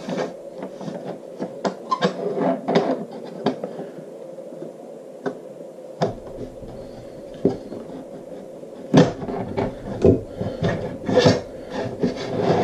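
Irregular clicks, knocks and rubbing as 2020 aluminium extrusion rails and an aluminium bed plate on V-groove wheels are slid and shifted on a wooden table. A cluster of louder knocks comes about nine to eleven seconds in.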